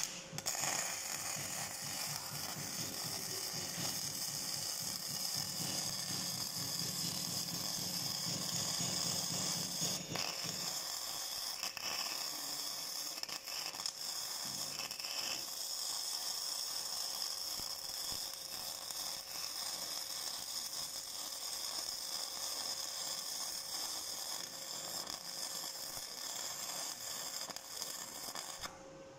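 Flux-core arc welding on thin sheet steel: the arc crackles steadily for almost the whole stretch, then stops shortly before the end.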